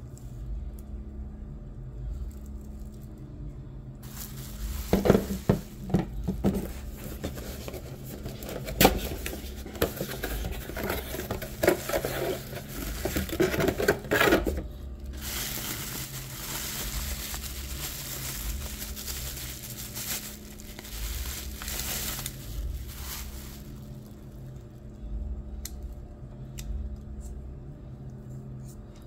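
Hands handling a Piscifun Chaos XS 60 conventional fishing reel: a run of small metal clicks and clinks, then a longer stretch of rustling, then a few faint clicks near the end.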